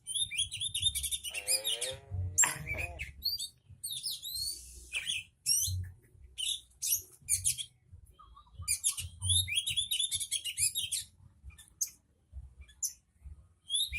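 Songbird singing: phrase after phrase of quick, high chirps and trills with short pauses between them.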